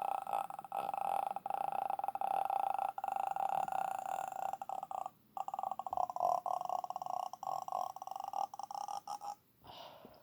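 A man's voice imitating the croaking death rattle from The Grudge: a long, creaking throat rattle of rapid clicks held on one pitch. It breaks off briefly about five seconds in and again near the end.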